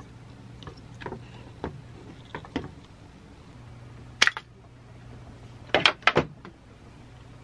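Tin snips closing with one sharp snip about four seconds in, then a quick clatter of three knocks as the snips are laid down on the workbench about a second and a half later. Light clicks of the circuit board being handled come before, over a faint steady low hum.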